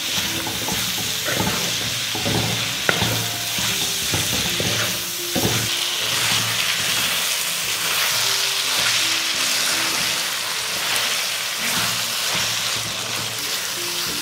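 Chopped banana flower frying in sesame oil with ground garlic in a kadai. It sizzles steadily with no water added, and the stirring clicks against the pan, most often in the first six seconds.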